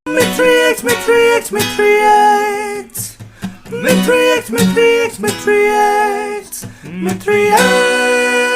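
Music: acoustic guitar strumming chords in short groups, ending on a longer held chord.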